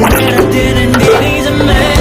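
Background music: a pop song with a steady beat and sustained instrumental notes.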